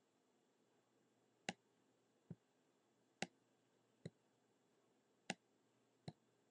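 Six single computer mouse clicks spaced roughly a second apart, over faint room hiss.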